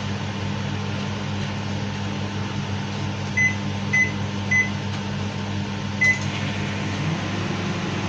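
Microwave oven keypad beeping as the timer is set: three short beeps about half a second apart, then a fourth with a click about six seconds in. A steady low hum runs underneath, and a further hum joins it near the end as the oven starts.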